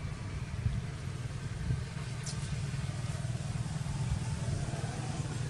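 Steady low rumble, with one brief, faint high squeak about two seconds in.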